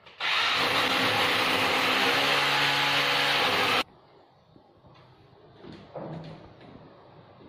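Corded electric drill running hard, boring into a plastered wall for about three and a half seconds, then stopping abruptly. A few faint knocks follow.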